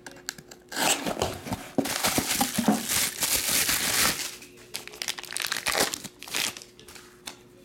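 Wrapping crinkling and tearing as a cardboard box is opened and a card wrapped in black material is unwrapped: a dense stretch of rustling for the first few seconds, then scattered crackles.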